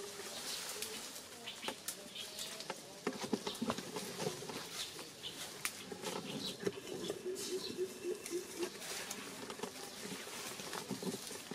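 Dry leaf litter rustling and crackling in irregular bursts as a macaque moves and forages through it. About seven seconds in comes a quick run of short pitched notes.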